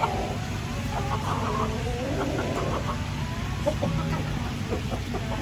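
Chicken clucking with low, drawn-out calls through roughly the first half, over steady low background noise.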